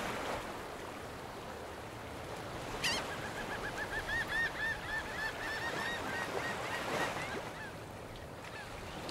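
A bird calling in a quick series of short, repeated notes, about four a second, from about three seconds in until about seven seconds, over a steady background rush. A single sharp click comes just before the calls begin.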